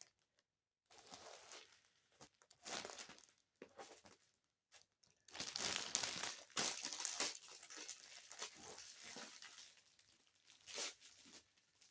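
Plastic packaging of a diamond painting kit crinkling and rustling in irregular bursts as it is handled. It is loudest and most continuous from about five to eight seconds in.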